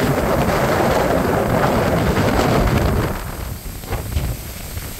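Gusty storm wind buffeting the microphone, a loud rumbling rush that eases about three seconds in.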